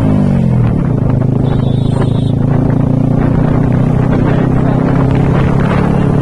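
Motorcycle engine running while the bike is ridden along the road. The engine note falls in the first second, as when easing off the throttle, then holds steady.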